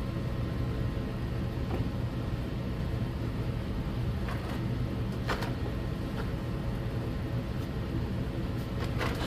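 A steady low hum in the workshop, with a few light knocks and clicks as the metal exhaust manifold and drill are shifted about on the bench.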